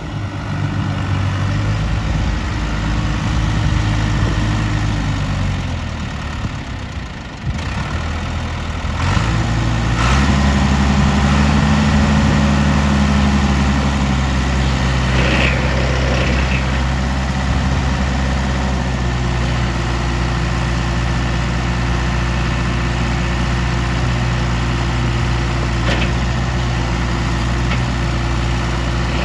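John Deere 2130 tractor's three-cylinder diesel engine running. Its speed sags a few seconds in, picks back up about ten seconds in, then holds a steady idle.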